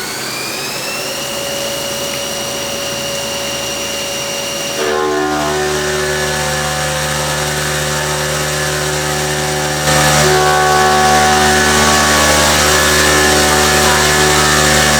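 CNC working center's spindle motor whining up to speed, its pitch rising and then holding steady about a second in. About five seconds in the machine gets louder with a many-toned hum, and about ten seconds in it steps up louder again.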